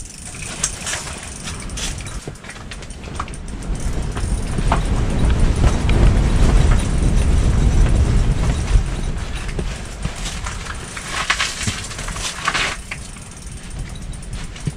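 A spinning reel being cranked in short spells with clicking and rasping from the reel while a fish is played on a bent ice-fishing rod. A heavy low rumble of wind buffeting the ice shelter swells up in the middle and is the loudest sound. A dense run of rasping clicks comes about three quarters of the way through.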